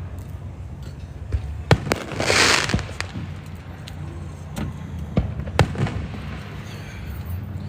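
Fireworks display: explosions popping at irregular intervals, with a short burst of hissing crackle about two seconds in.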